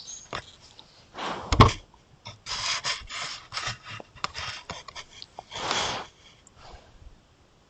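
A Roosevelt elk rubbing against a trail camera, scraping over the housing right at the microphone in irregular scratchy bursts. There is one loud knock about one and a half seconds in.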